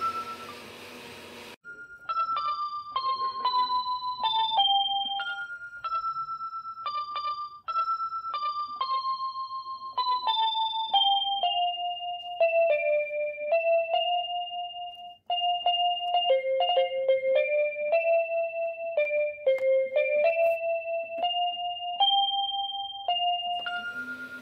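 Background music: a simple melody played one note at a time on a keyboard, in short phrases that mostly step downward.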